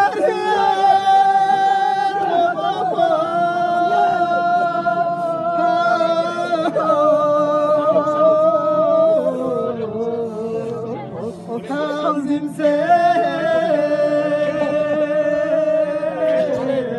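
A man chanting a Balti marsiya, a Shia mourning elegy, without accompaniment, in long held, wavering notes. His voice drops in pitch about halfway through and rises again a few seconds later.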